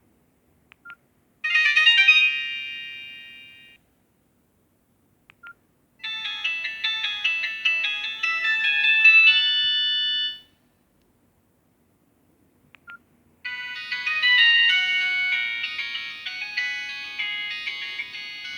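Samsung GT-E1200i mobile phone playing its built-in ringtones through its small speaker, three in turn. Each is a few seconds of electronic melody with a short beep before it. The first fades out, the second cuts off suddenly, and the third is still playing at the end.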